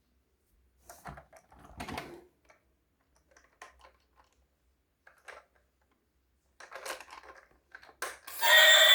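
Scattered light clicks and clatters of plastic toys being handled, in short irregular bursts. Near the end a loud electronic tune starts abruptly.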